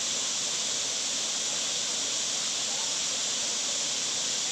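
Rushing water of a hill stream or waterfall: a steady, even hiss with no breaks.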